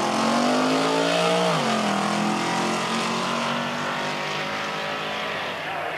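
Ford Mustang drag cars accelerating at full throttle down the strip. The engine note climbs, drops sharply at an upshift about a second and a half in, then climbs again as the sound slowly fades.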